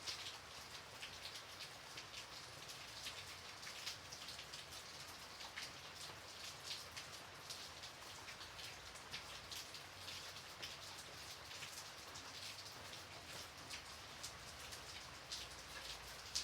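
Light, steady rain with many separate drops pattering on a surface.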